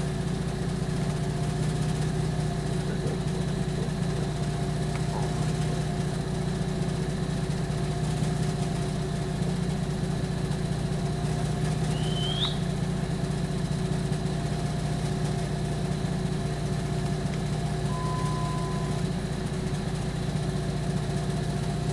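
Vehicle engine idling, a steady low hum that holds level throughout.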